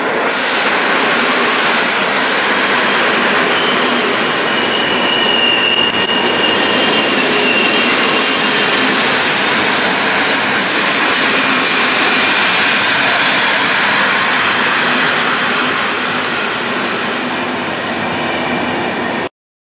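PKP Intercity passenger coaches rolling steadily past along the platform. Wheels and bogies make a continuous rumble and hiss, with a thin high wheel squeal a few seconds in. The sound cuts off suddenly near the end.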